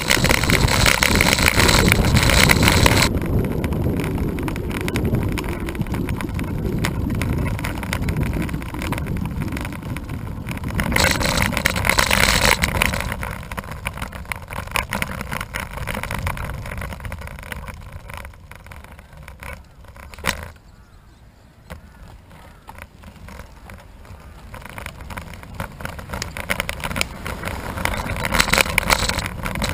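Riding noise from a road bike: wind on the camera microphone and tyres on asphalt, loud at first, easing off through the middle and rising again near the end, with one sharp click a little past the middle.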